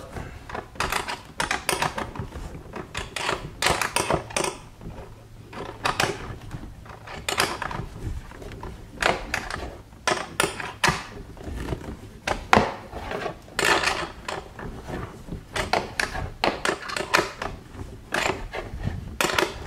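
Hand ratchet clicking in short back-and-forth strokes, in irregular bursts, as a nut is snugged up.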